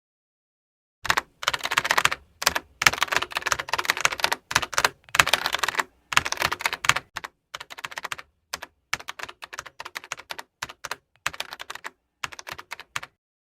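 Computer-keyboard typing, starting about a second in: fast runs of keystrokes at first, thinning into scattered single keystrokes, and stopping about half a second before the end.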